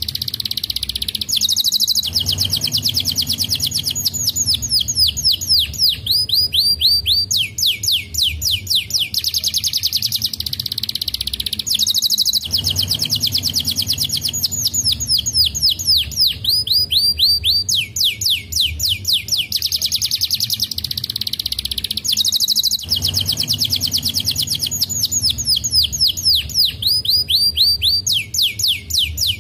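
Domestic canary singing in fast trills: long runs of rapid, high, downward-sweeping notes that change speed and pitch from run to run. The same song sequence comes round again about every ten seconds.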